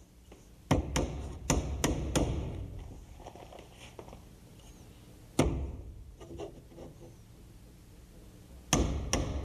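Claw hammer driving small nails through a plywood hinge-mortise template into the edge of a wooden door: about five quick blows in the first couple of seconds, a single blow midway, and two more near the end.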